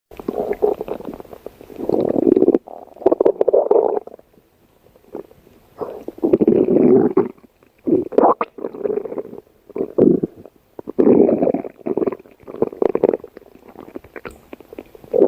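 Stomach growling: a series of gurgling rumbles coming in bouts of one to two seconds, separated by short quiet gaps, with the longest lull about four to six seconds in.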